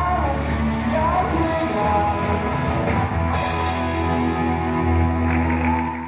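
Live rock band playing electric guitars and drums, with a man singing.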